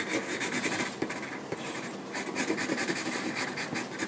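Graphite pencil scratching on drawing paper in rapid, repeated shading strokes, laying down dark tone on the bottle's screw threads.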